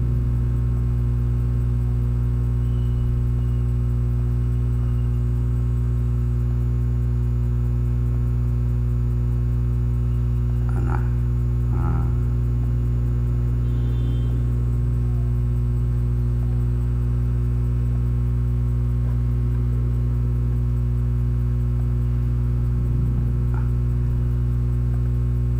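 Steady electrical mains hum in the recording: a constant low buzz with a stack of overtones that does not change. A couple of faint, brief sounds come about halfway through.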